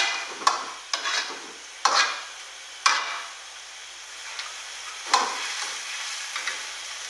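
Long metal ladle stirring crayfish in broth in a steel wok, knocking and scraping against the pan several times over the steady hiss of the wok on a high gas flame.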